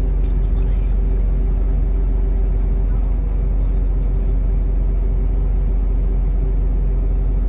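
Engine of nearby heavy machinery idling steadily: a constant low hum with a steady pitched drone that does not change.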